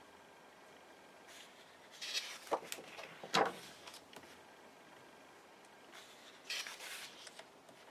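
Pages of a hardcover photo book being turned by hand: a papery rustle about two seconds in with two sharp snaps, the second the loudest, as the page flips over and lands. A softer rustle of a hand on the page follows near the end.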